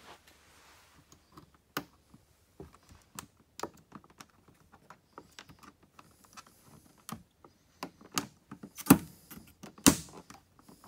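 Scattered small plastic clicks and taps as push-pin clips are handled and pressed into the carbon fiber rear diffuser, with two louder snaps about a second apart near the end.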